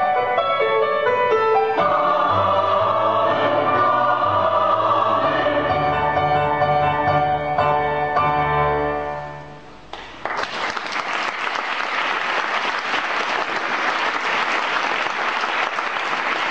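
Choir singing its closing phrase, ending on a long held chord that fades out about nine seconds in; about a second later the audience breaks into steady applause.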